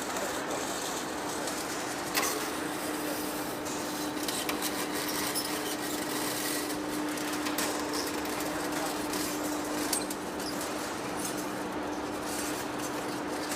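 Heavy-duty face lathe running, a steady mechanical hum with one constant tone over a noisy hiss, and a few light clicks.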